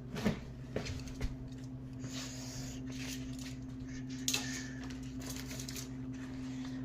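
Tools being set down and shuffled on a tool chest: a few sharp knocks in the first second and a half, then rustling and another brief clatter midway, over a steady low hum.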